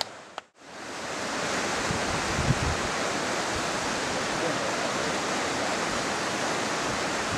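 Steady rushing wind noise buffeting the microphone, with a low flickering rumble, setting in about a second in after a brief drop-out.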